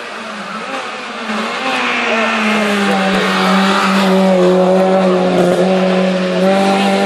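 A hatchback hillclimb race car's engine running at high revs as the car drives up the road and passes close by. The engine gets much louder about two seconds in and then holds a steady pitch.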